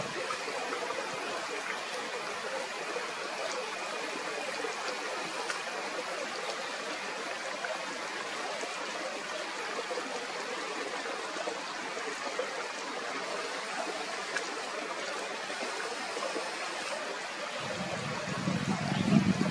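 Steady rush of flowing river water. A low rumble joins near the end.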